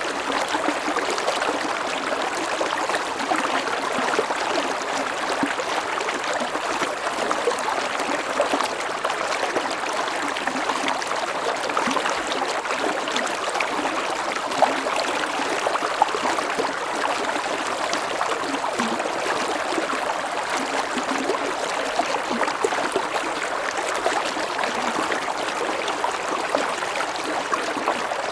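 Mountain stream flowing and splashing over rocks in a steady rush of water, with small gurgles and splashes throughout.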